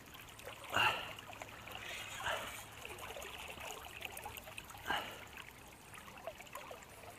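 Fast river current rushing past, with three brief splashes about one, two and five seconds in, the first the loudest, as a hooked smallmouth bass fights near the surface.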